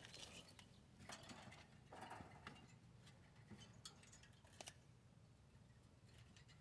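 Near silence: a faint low steady hum with scattered light clicks and scuffs, roughly one a second.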